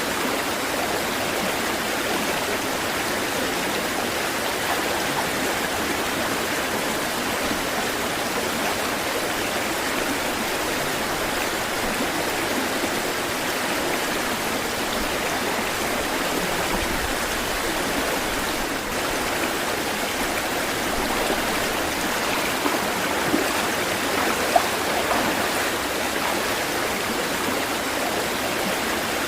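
Running water rushing steadily, with a few brief ticks near the end.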